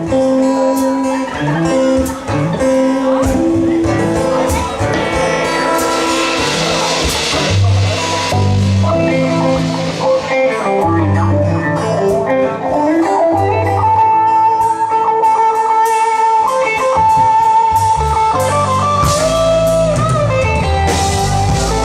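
Live band playing a guitar-led passage over bass and drums, with a long held guitar note in the middle.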